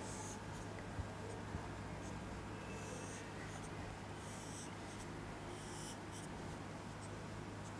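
Marker drawing lines on a whiteboard: several separate scratchy strokes, each about half a second long, as straight arrows are drawn one after another, over a steady low hum.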